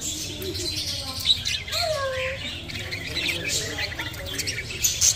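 A flock of caged lovebirds and budgerigars calling together: a constant chatter of short, high chirps with a few sharper, louder shrieks.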